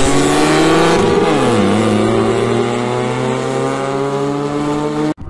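A race car's engine passing close by, its pitch dropping as it goes past about a second in, then holding a steady, lower drone as it draws away. The sound breaks off abruptly just before the end.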